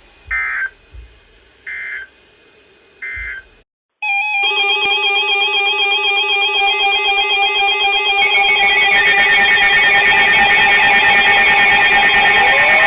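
Three short warbling data bursts from a NOAA Weather Radio receiver, the SAME digital end-of-message code sent after the severe thunderstorm warning. About four seconds in, loud guitar music starts and keeps growing louder.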